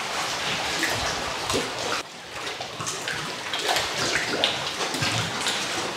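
Georgian Bay water lapping and sloshing against the rocks inside a cave arch: a continuous wash with irregular small splashes. The level dips suddenly about two seconds in, then the same lapping carries on.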